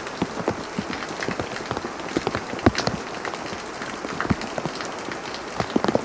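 Heavy rain downpour: a steady hiss of rain, with individual drops landing close by as many irregular sharp taps.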